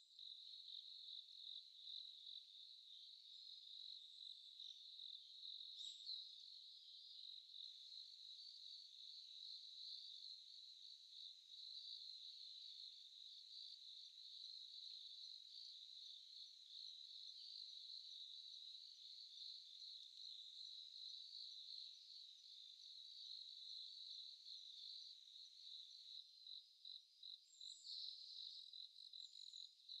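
Faint, steady insect chirring: a continuous high trill of rapid pulses that never breaks, with a couple of short, higher calls about six seconds in and again near the end.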